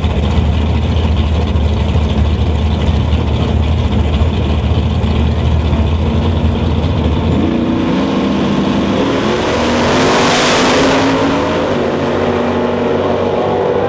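Two outlaw drag-radial race cars' V8 engines running at the starting line with a steady low drone, then launching about seven and a half seconds in and revving hard as they accelerate down the drag strip.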